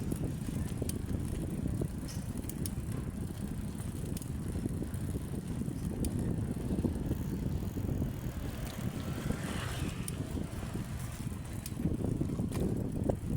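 Bicycle being ridden: a steady low rumble of tyres on the road, with scattered light clicks and rattles.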